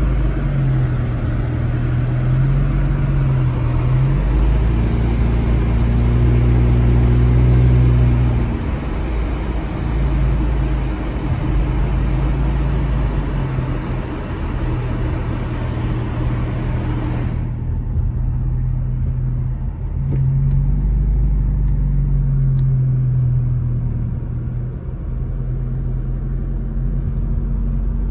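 Car driving on a wet road, heard from inside the cabin: a low engine hum that rises and falls in pitch a few times under tyre hiss. The hiss drops away abruptly about two-thirds of the way through, leaving the engine hum.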